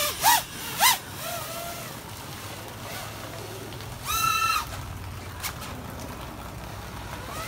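FPV racing quadcopter's motors whining in two short throttle surges as it flies past, over a steady background hiss. About four seconds in, a brief high-pitched tone lasts about half a second.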